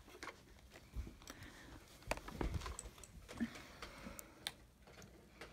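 Faint, scattered clicks and light knocks of plastic toy tow trucks and their hooks being handled.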